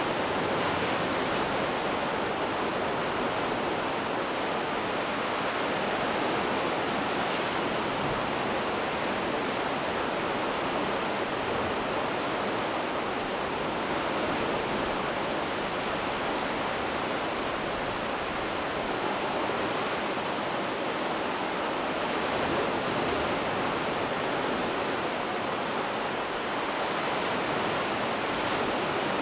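Steady rushing wash of the sea surf at the foot of a sea cliff, even and unbroken throughout.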